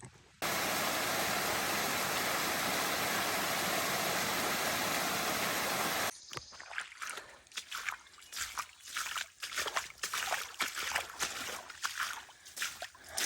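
Rushing stream water, a loud steady rush that cuts in abruptly near the start and stops abruptly about six seconds in. After it, irregular footsteps on the trail.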